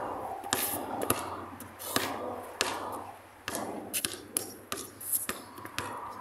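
Basketball being dribbled on pavement: a run of sharp bounces at an uneven pace, roughly one to two a second.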